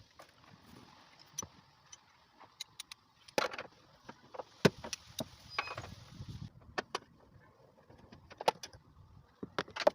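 Scattered sharp metallic clicks and knocks of tools and parts being handled while working on a car's door-hinge area, the loudest about halfway through, over a steady hiss that stops about two thirds of the way in.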